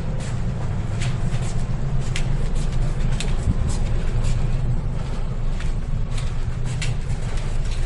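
Steady low rumble of a ferry's engines and machinery carried through the ship, with irregular light clicks and taps on top.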